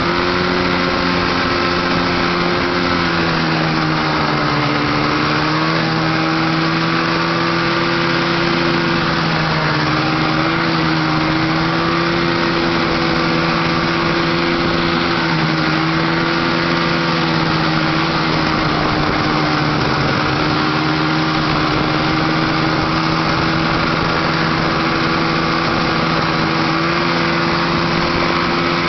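1971 Polaris TX Charger snowmobile's two-stroke engine running steadily under way at cruising speed. Its pitch dips slightly a few seconds in and rises a little near the end.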